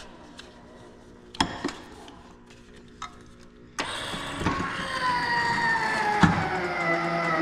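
An electric linear actuator motor starts whining about four seconds in as it tilts the mower deck up, its pitch slowly dropping as it works. Before it starts there are a couple of knocks against a low steady hum.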